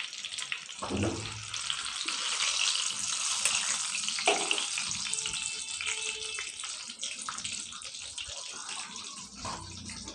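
Hot oil sizzling and crackling steadily as breaded chicken chili bites deep-fry in a wok, with a couple of soft utensil knocks near the start and about four seconds in.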